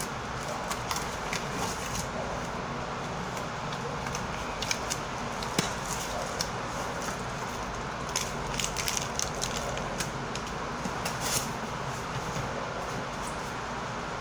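Gloved hands handling swabs and medical supplies: light rustling and scattered small clicks, busiest in the second half, over a steady background hiss.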